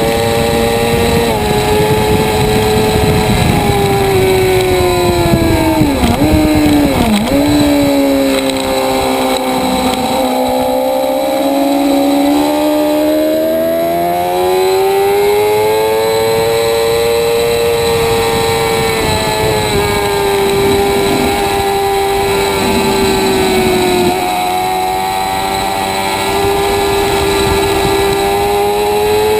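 Motorcycle engine at track speed, its pitch rising and falling with the throttle. Two quick dips about six and seven seconds in drop it to its lowest revs, and then it climbs again through the rest of the lap.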